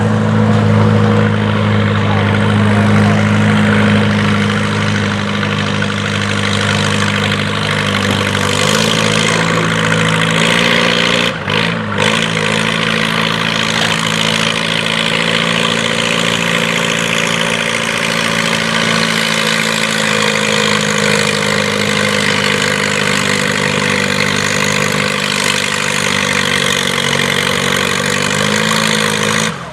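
Farm pulling tractor's engine running hard at a steady pitch, with a short break in the sound about a third of the way through.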